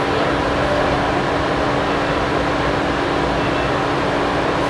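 Inside a light rail car in motion: a steady rumble and rolling noise with a constant low hum.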